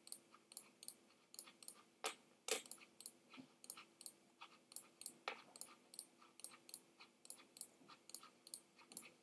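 Faint, irregular clicking, a few small clicks a second, over a faint steady low hum.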